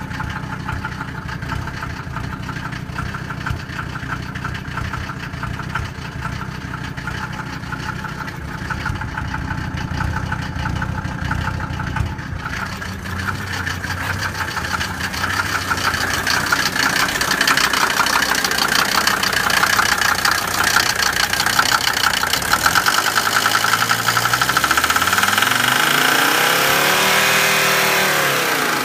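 Mercedes 190D turbo diesel engine running with a rapid metallic knocking (nailing) and a rough idle, which the owner puts down to the injectors after replacing their O-ring seals. It gets louder partway through, and near the end it is revved up and drops back.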